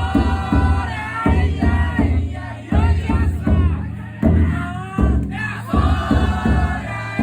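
Big drum of a Niihama taikodai festival float beaten in a steady rhythm, about one heavy strike every three-quarters of a second, while a crowd of bearers shouts and chants.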